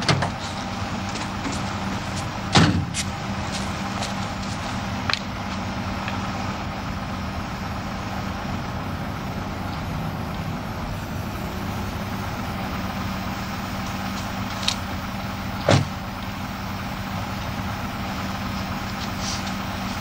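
A vehicle engine idling steadily, with a car door slammed shut about two and a half seconds in and another sharp thump near the sixteen-second mark.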